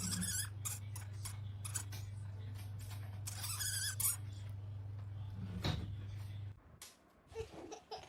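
A hamster scrabbling and clicking, with a couple of short high squeaks, over a steady low hum that cuts off suddenly about six and a half seconds in.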